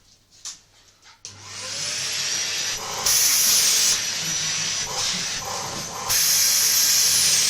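Vacuum cleaner switched on about a second in, its motor spinning up with a rising whine and then running steadily. Its loudness jumps up and down a few times as the suction changes.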